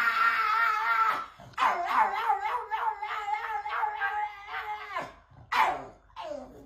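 Pug howling. A long wavering howl ends about a second in, a second long howl runs from about a second and a half to five seconds in, then two short howls come near the end.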